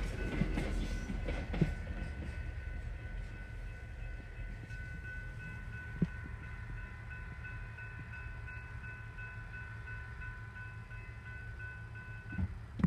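Railroad grade-crossing warning bell ringing steadily as the passing locomotives fade away; the bell stops near the end, once the train has cleared and the gates go up. A low rumble and a few short thumps lie underneath.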